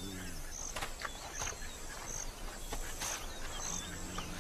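Bush ambience: a short high chirp repeats roughly every second, with a few faint bird calls. A spotted hyena's low drawn-out groan fades just after the start, and another begins near the end, as the cub makes its appeasing approach to the adult female.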